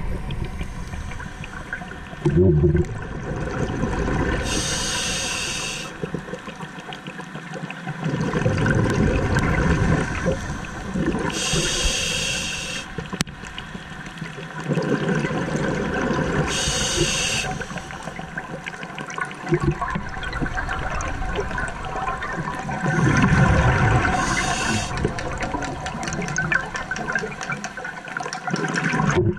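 Scuba regulator breathing heard underwater: a hissing inhale roughly every six seconds, each followed by a burst of exhaled bubbles.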